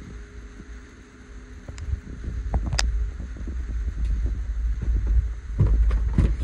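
Low rumble of a hand-held phone being carried along on foot, with a few sharp clicks. Near the end comes a quick run of clicks and knocks as a doorknob is turned and the door latch releases.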